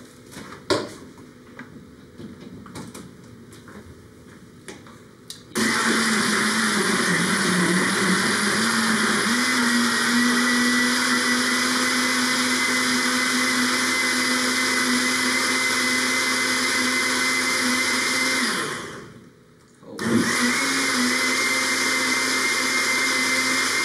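Countertop blender blending ice cubes, water, quartered tomatoes and parsley. After a few small clicks, the motor starts about five seconds in, with a steady whine. Its pitch dips briefly, then rises and holds steady. It winds down and stops about nineteen seconds in, then starts again a second later for a second run.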